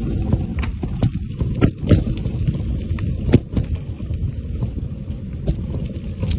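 Mountain bike rolling along a dirt trail: a steady low rumble of the tyres over dirt and leaves, broken by sharp knocks and rattles as the bike hits bumps, the loudest about three and a half seconds in.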